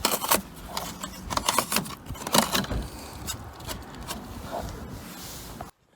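Bumper foam being broken and torn away by hand: irregular crackling and scratching with short crunchy snaps. The sound cuts off abruptly near the end.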